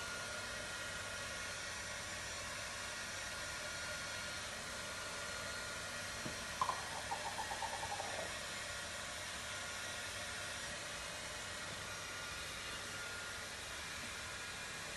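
Hair dryer running steadily with an even hiss. About six and a half seconds in, a short run of quick pulses that fall slightly in pitch, lasting under two seconds.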